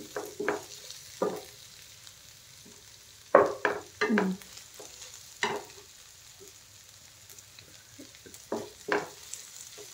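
Wooden spatula stirring and scraping sautéed vegetables around a nonstick frying pan in short, irregular strokes, the loudest a few seconds in, over a faint steady sizzle of frying.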